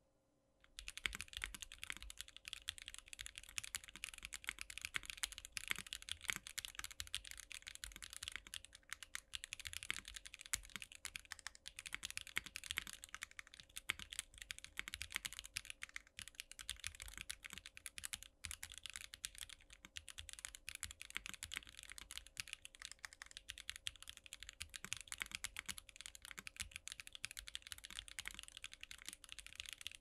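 Steady fast typing on an ai03 Vega mechanical keyboard fitted with stock Gateron Cream Soda switches, a polycarbonate plate, no foam, and GMK keycaps. The keystrokes begin about a second in and run on without pause.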